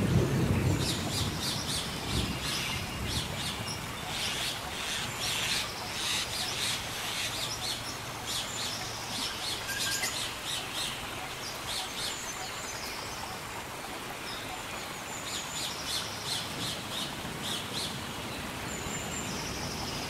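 Steady rainforest rain with many birds chirping high over it. A low thunder rumble fades out over the first second or two.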